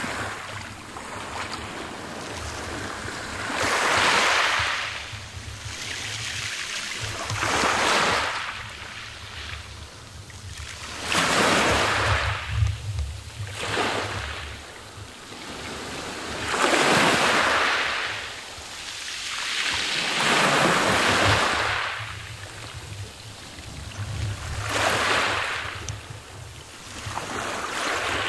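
Small sea waves washing up a pebble beach, each wave a swell of hiss that rises and falls, about seven in a row a few seconds apart, over a low wind rumble on the microphone.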